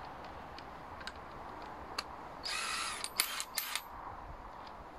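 A Makita DTW190 cordless impact wrench being handled: a few light clicks, a brief rasp about two and a half seconds in, then a quick run of four or five sharp plastic clicks.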